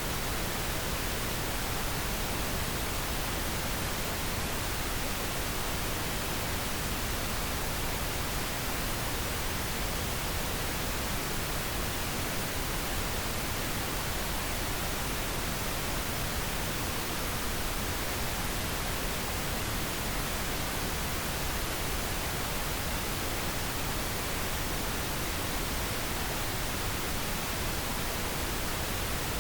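Steady pink noise, an even hiss with no changes, played as a sleep aid for babies.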